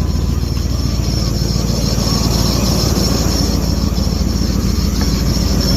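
2003 Dodge Ram's 5.7-litre Hemi V8 running steadily just after starting. A jumper is bridging a broken wire by the ECM, the fault that had cut communication to the engine computer and stopped it cranking.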